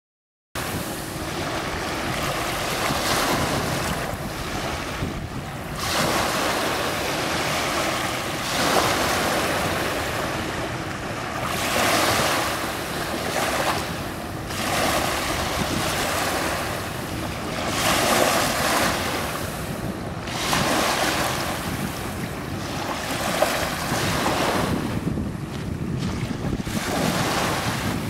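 Small waves washing in on a sandy beach, the surf swelling and easing about every three seconds.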